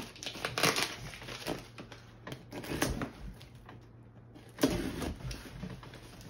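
Blade slitting packing tape on a cardboard shipping box: short scratchy strokes and scraping of cardboard, with a louder rasp near the end as the box flap is pulled open.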